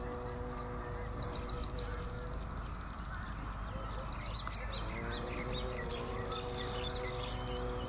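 Bird calls: quick high chirps in short runs of four or five notes, three times, the last run longer, about six seconds in. Underneath is a steady hum that fades out about two seconds in and comes back rising in pitch about five seconds in.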